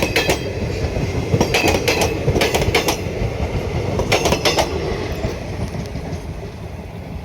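Passenger train coaches rolling along the track, wheels clacking over rail joints in quick groups over a steady rumble. The sound fades toward the end as the train moves away.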